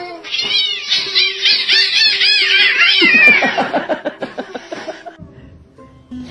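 Two cats in a standoff yowling at each other in quick, rising-and-falling cries, turning about three seconds in to a lower, rapidly pulsing growl.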